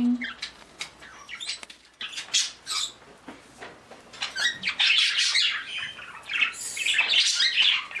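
Pet parakeets chirping and squawking in their cages, short high calls coming thick and fast and growing louder in the second half, with the rustle of a fleece cage cover being pulled off.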